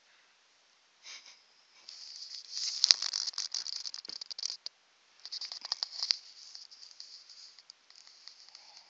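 Dog snoring with a crackling, rattling sound, loudest in a long stretch about two seconds in and a shorter one about five seconds in, then fainter.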